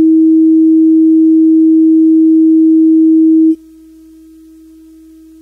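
Steady low-pitched sine test tone from the polarity verification track of a Maxell MD-CL MiniDisc lens-cleaner disc. It plays loudly in phase, then about three and a half seconds in drops suddenly to a much softer tone at the same pitch as the track switches to the out-of-phase tone, which should sound soft.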